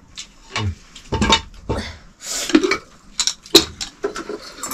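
Metal dishes and utensils clinking and knocking together in a string of sharp, irregular clatters.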